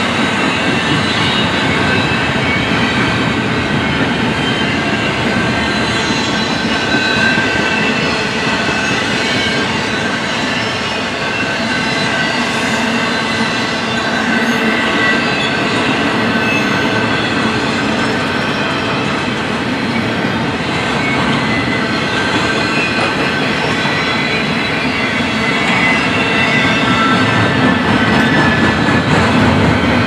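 Double-stack intermodal container freight train rolling past at close range, its steel wheels running steadily on the rails with high wheel squeal throughout. It grows a little louder near the end.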